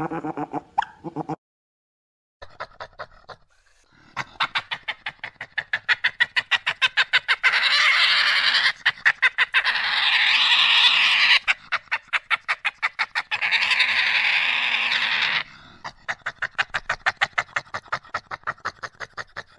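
Animal-like calls: long runs of fast rattling pulses, broken by two long, high screeches in the middle.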